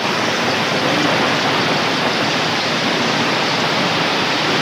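Heavy rain mixed with hail pelting down: a dense, steady hiss.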